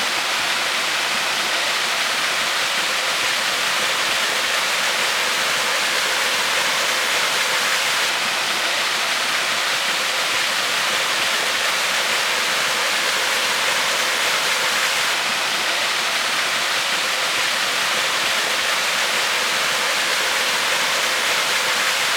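Waterfall rushing: a steady, even sound of falling water with no change throughout.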